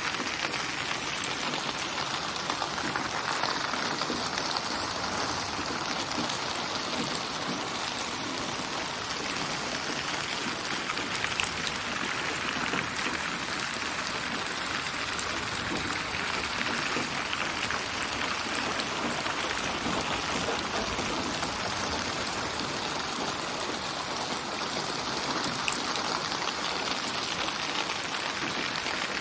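Steady rain: an even hiss with no tune or voice, slowly swelling and easing.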